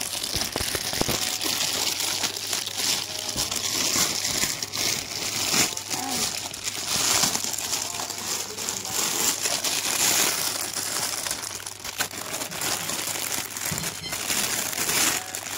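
Clear plastic packaging bag crinkling without a break as it is unwrapped from a toy excavator, full of small crackles.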